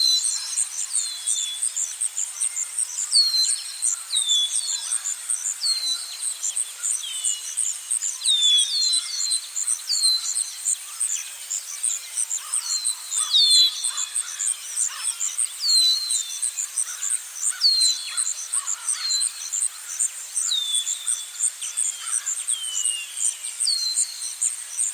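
Forest ambience: insects keep up a steady, high-pitched pulsing chorus while a bird repeats short chirps every couple of seconds.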